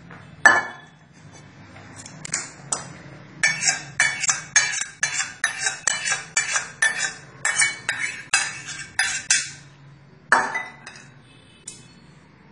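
Metal clinks from a cooking pan as tempering water is poured from it over steamed dhokla in a metal tray. There is one knock about half a second in, then a quick run of about fifteen light clinks, two or three a second, and a last clink near the end.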